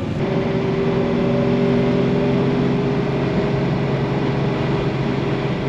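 Classic Ford Falcon-family V8 heard from inside the cabin, running steadily at cruising speed with a steady engine drone and road noise.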